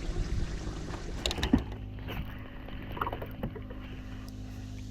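Water moving against a small fishing boat's hull, with a few short clicks and knocks about a second and a half in, after which a faint low steady hum sets in.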